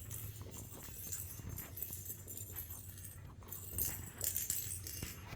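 Faint, irregular metallic jingling and rustling from puppies moving about on the floor, over a steady low hum.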